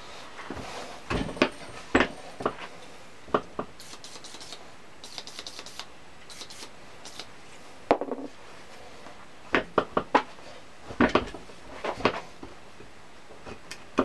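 Heavy cast-iron parts of an old Record No 5 engineer's vice being handled on a workbench: irregular metal knocks and clanks as the body and sliding jaw are moved and set down. In the middle there are a few short, high-pitched scratchy rubbing sounds.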